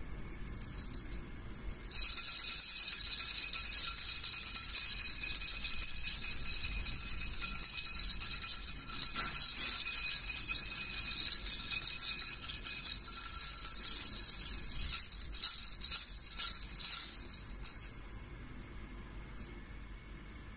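Small bells jingling, shaken steadily; the bright, shimmering ringing starts suddenly about two seconds in and fades out about two seconds before the end.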